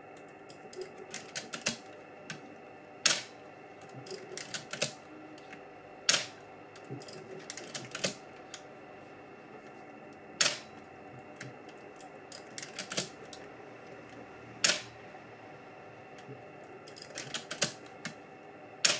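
Canon New F-1 film SLR being fired and wound over and over: its titanium-curtain focal-plane shutter gives a loud, sharp clack about every three to four seconds, five times in all. Between the clacks come runs of smaller clicks from the camera being worked.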